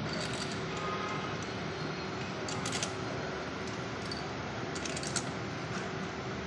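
A few light metallic clinks and taps of tools and engine parts being handled, scattered over a steady background hiss with a faint hum.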